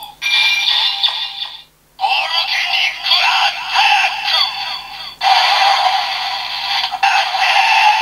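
Kamen Rider Build DX Build Driver toy, with the DX Cross-Z Magma Knuckle set in it, playing its electronic finishing-move sequence after one turn of the lever: synthesized sound effects and music, warbling at first, then a steady held sound from about five seconds in.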